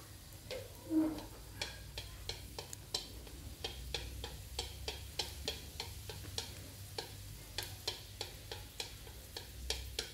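Minced garlic and shallots frying in a little oil in a metal wok while wooden chopsticks stir them: a faint sizzle with small irregular clicks and taps, several a second. The aromatics are being fried until just golden.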